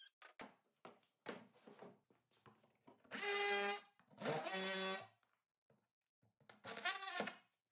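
DeWalt oscillating multi-tool plunge-cutting into plywood in three short buzzing bursts of under a second each, the pitch bending in the later two. A few faint clicks come before the first burst.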